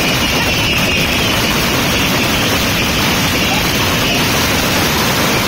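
Fireworks batteries firing in a dense barrage, many shots and bursts running together into one loud, steady wash of noise without a break.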